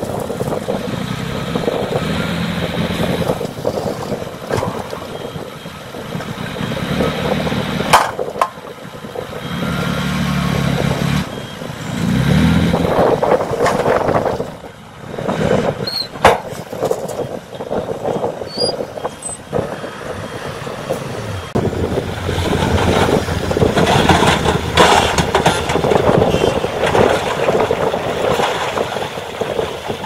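Diesel engine of a 5-ton dump truck running and revving in bursts while it tips its bed to unload soil, then driving off. There are two sharp bangs, about 8 and 16 seconds in.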